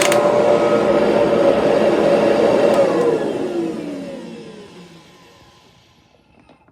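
Kirby Heritage II upright vacuum cleaner's motor running with a steady whine. About three seconds in there is a click and the motor is switched off. Its whine falls in pitch as it winds down to a stop over about three seconds.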